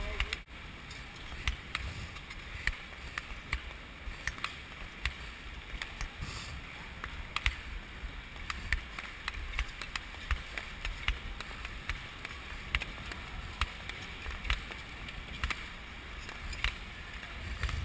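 Speed skates on ice: a steady stroke rhythm, with a sharp click or scrape of the blades about once a second, over a low rumble of wind on the microphone.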